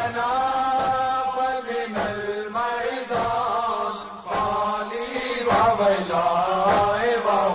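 A noha, a Muharram lament, chanted by a single voice in long, held, wavering notes without clear words.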